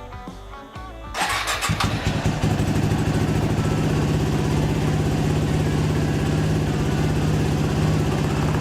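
Background music for about a second, then a Yamaha WR250R's single-cylinder engine starts and settles into a steady idle, on fresh oil just after an oil change.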